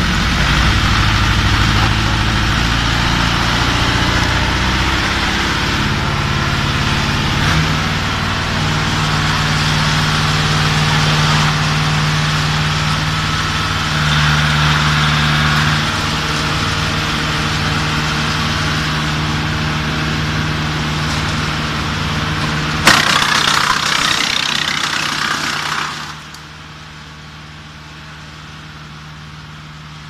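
40 hp mobile wood chipper running hard, its engine note shifting in speed a few times. About 23 seconds in, a branch is fed in with a sharp crack and chewed for about three seconds. After that the sound falls much quieter, with the engine still running.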